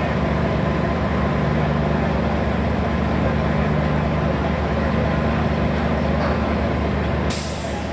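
A motor vehicle's engine running steadily, with a short sharp hiss near the end.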